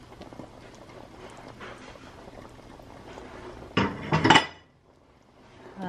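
Cookware sounds as cooked shrimp go back into a pan of coconut milk and squash: faint clicks and scrapes of a wooden spatula. About four seconds in come two or three quick, loud knocks of dishes or utensils against the pan.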